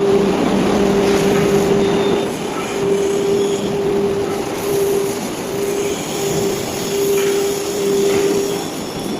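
Cantilever welding robot at work: a steady hiss with a buzzing hum that cuts out and comes back several times.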